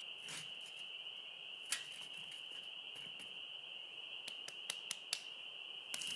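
A steady high-pitched chorus of spring peepers, with several sharp clicks over it: the loudest about two seconds in, then a quick run of them about four to five seconds in.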